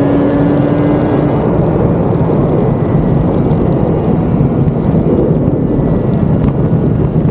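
Motorcycle ridden at a steady cruise: heavy wind rush over the bike-mounted camera's microphone, with the Suzuki RG500's two-stroke square-four engine running at constant revs underneath.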